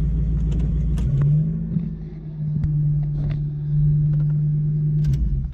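Toyota 1UZ-FE VVT-i V8 running in a Mitsubishi Delica van, heard from inside the cab as it drives. Its note steps up about a second in, holds steady, and falls away near the end, with a few light clicks and rattles.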